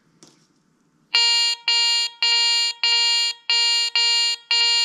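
Garrett ACE 300i metal detector giving its target tone for an 8-karat gold chain passed over the search coil: seven short beeps at the same pitch, about two a second, starting about a second in.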